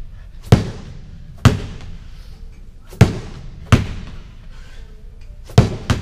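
Medicine ball slammed repeatedly onto a rubber gym floor: about six sharp, loud thuds, each ringing briefly in a large room.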